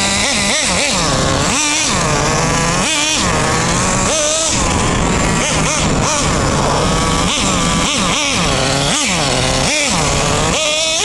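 Traxxas Jato 3.3 RC buggy's TRX 3.3 nitro two-stroke engine being blipped and driven, its high-pitched note rising sharply and falling back to a steady idle many times over, roughly once every second or two.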